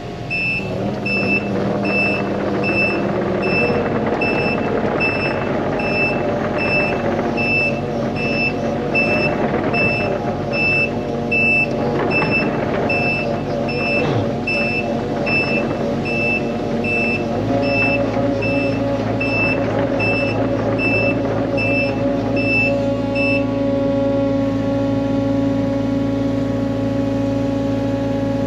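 Takeuchi TB250-2 mini excavator running, its travel alarm beeping a little more than once a second as it tracks; the beeping stops about 23 seconds in. The engine note shifts about 17 seconds in.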